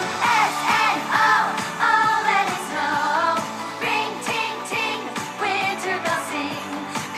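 A pop song with a singing voice and a steady beat.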